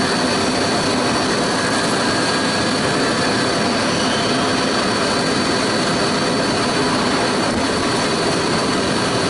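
Miele Blizzard CX1 canister vacuum cleaner running steadily: a loud rush of air with a steady high whine over it.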